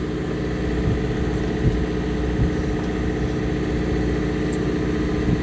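A fishing boat's engine running steadily at idle: a constant low hum with a steady pitched drone over it.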